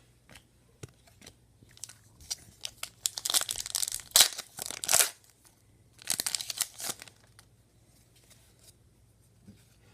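Trading cards and their plastic or paper wrapping being handled: a few light clicks, then two short bouts of rustling and crinkling with sharp crackles, the loudest about four seconds in.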